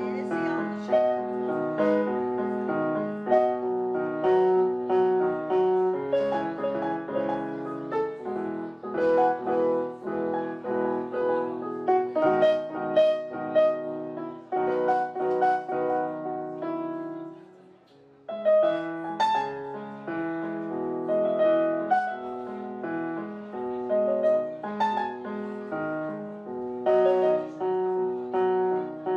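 Korg Pa3X arranger keyboard being played: a tune of notes and chords, which breaks off for about a second two-thirds of the way through and then starts again.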